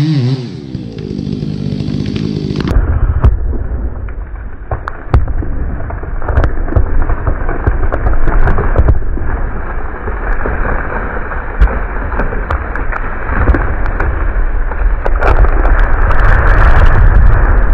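A felled 55-inch old-growth pine going over: the chainsaw winds down at the very start, then wood cracks and pops repeatedly over a loud low rumble as the hinge gives. Near the end a dense burst of cracking and breaking builds to the loudest point as the tree comes down through the neighbouring trees.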